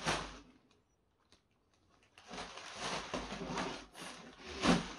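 Large plastic bag rustling and crinkling as it is handled: a short burst at the start, then continuous crinkling from about two seconds in.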